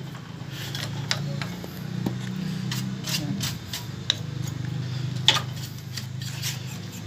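Scattered light clicks and knocks of hands handling the opened CRT television's plastic cabinet and chassis, over a steady low hum.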